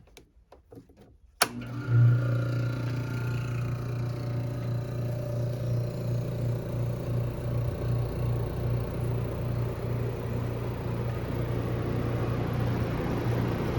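1958 Westinghouse Mobilaire room air conditioner switched on with a sharp click about a second and a half in, its compressor and fan starting at once and running with a steady low hum and rush of air. The unit is starting to cool.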